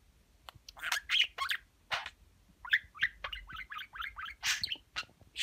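Male budgerigar chattering without words: a few harsh calls after about a second, then a quick run of short chirps, and a louder squawk near the end.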